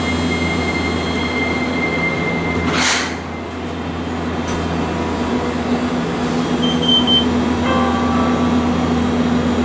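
Hiroshima Electric Railway 800-series tram heard from inside while running: a steady, loud rumble of motors and wheels on rail, with a low hum and a thin high whine. A brief hiss comes about three seconds in, after which the noise eases, then slowly builds again.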